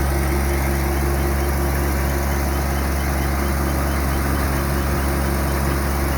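Compact tractor's diesel engine running steadily at a constant speed.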